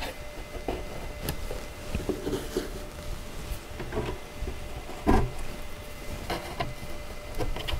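Pegs being pushed by hand into holes in the top edges of a shelf unit's divider panels: a handful of small separate knocks and clicks, the loudest about five seconds in.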